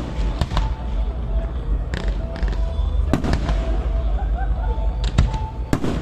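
Fireworks display: aerial shells bursting with irregular sharp bangs over a steady low rumble.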